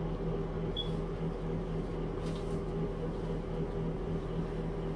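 Steady low mechanical hum with a faint, brief high chirp about a second in.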